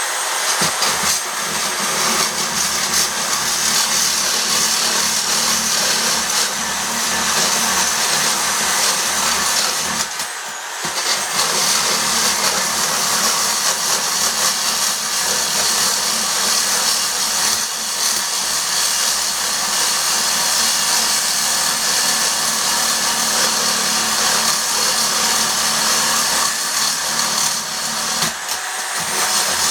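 Electric saw running steadily as it cuts through a leg of an office chair base, with two brief let-ups, about ten seconds in and near the end.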